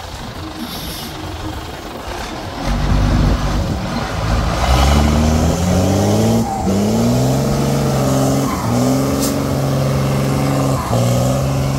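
Csepel D344 trial truck's engine working hard under load as the truck crawls through a steep ditch. It gets much louder a few seconds in, then revs up and falls back several times.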